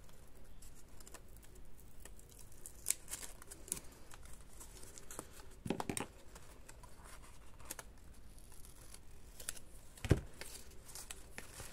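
Paper scraps and craft ephemera being handled and sorted on a tabletop: soft rustling and crinkling with scattered small taps and clicks, the sharpest a knock about ten seconds in.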